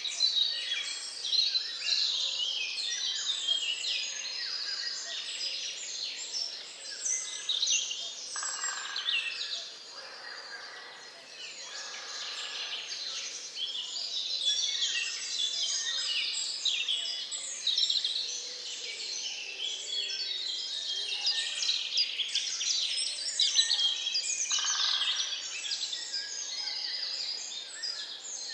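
Dawn chorus in a swamp forest: many birds singing at once, a dense, continuous mix of overlapping high chirps, trills and whistles.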